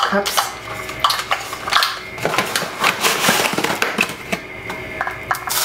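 Kitchen handling sounds: irregular clicks, clatters and rustles as plastic cups and food packaging are handled, with a longer rustle in the middle and a sharp clatter near the end.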